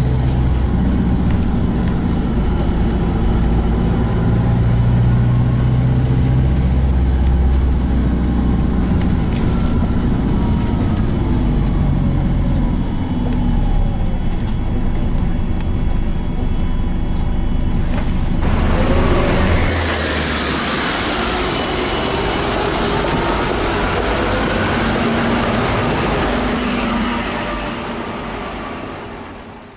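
Volvo B5LH hybrid double-decker bus heard from inside on the move: a steady low drivetrain hum with body rattles. About eighteen seconds in it switches to louder outdoor street noise around a bus, which fades out at the end.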